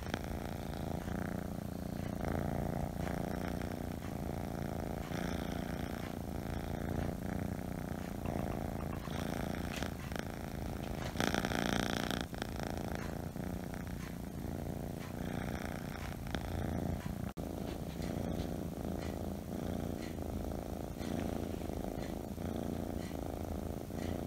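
Kitten purring steadily, very close to the microphone, a continuous fine rattling rumble. About eleven seconds in there is a brief louder, breathier stretch.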